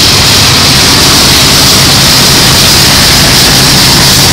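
Norfolk Southern diesel locomotives hauling a freight train passing close by: a loud, steady diesel engine rumble over the rushing noise of the moving train.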